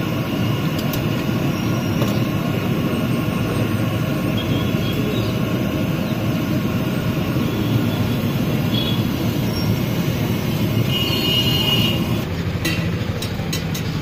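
Steady rushing noise of deep-frying: kachoris cooking in a large iron kadhai of hot oil over its burner. It eases slightly about twelve seconds in, and a few sharp metal clinks follow.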